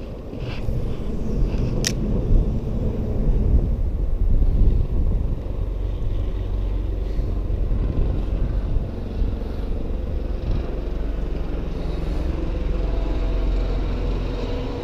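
Steady low rumble of road traffic crossing the bridge overhead, swelling for a few seconds early on, with one sharp click about two seconds in.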